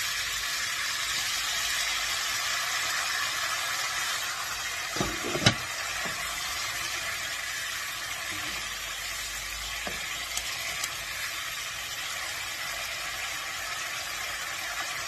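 Tomato sauce sizzling steadily in hot onion oil in a frying pan, with a spoon stirring it. The spoon knocks a few times against the pan about five seconds in and again near ten seconds.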